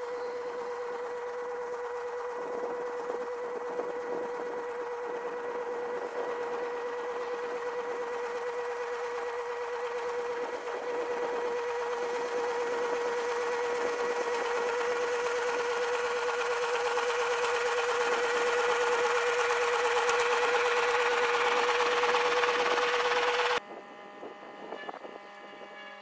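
Tractor pulling a small-square hay baler across the field at a steady working speed: one unchanging mechanical whine over engine noise, growing louder, then cutting off abruptly near the end.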